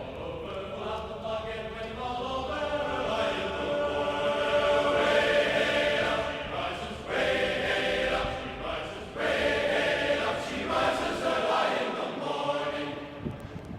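A choir of voices singing in long, held notes, with short breaks about seven and nine seconds in.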